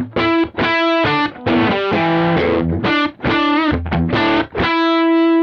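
Electric guitar played through a Kemper Profiler's compressor stomp with its attack set to 0, so the pick attack comes through before the compressor grabs the note. It plays a run of picked notes and short chords with brief stops between them, then a single held note rings on steadily from about four and a half seconds in.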